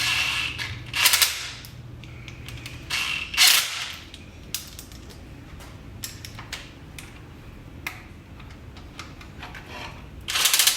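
Hand tools and car parts being worked on: small mechanical clicks and several short rasping bursts, one pair about three seconds in and another near the end.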